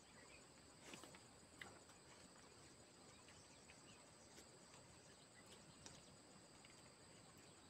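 Near silence: a faint steady high-pitched insect drone, with a few soft clicks, the loudest about a second and a half in.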